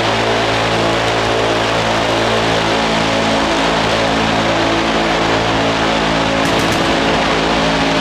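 Minigun firing one long continuous burst, the shots running together into a steady, unbroken buzzing drone.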